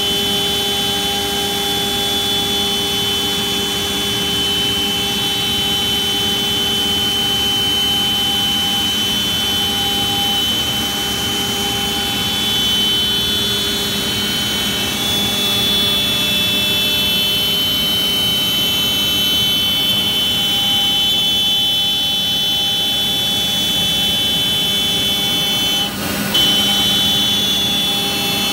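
CNC router spindle running at speed, its bit cutting a curved groove through sheet board: a steady high-pitched whine over the noise of the cut, with a brief dip about 26 seconds in.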